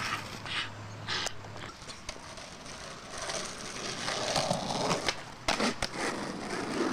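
Skateboard wheels rolling on a rough concrete path, with several sharp clacks of the board hitting the ground during flatground tricks, two of them close together about a second in and more in a quick run near the end.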